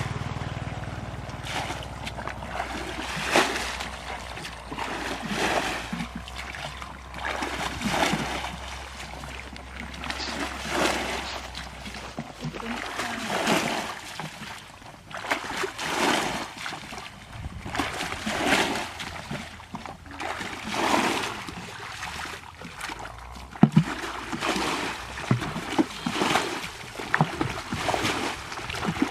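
Water splashing and sloshing in repeated swishes about every two seconds, under a low steady hum that stops partway through.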